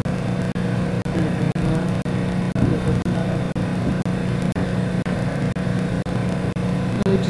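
Steady low mechanical hum of running lab machinery, dipping briefly about twice a second.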